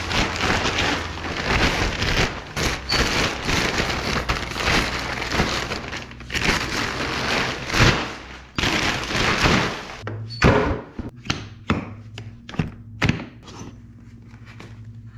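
Thick black plastic bag crinkling and rustling for about ten seconds as it is pulled off and bunched up. Then a series of sharp clicks and knocks as a hard plastic equipment case is unlatched and its lid opened.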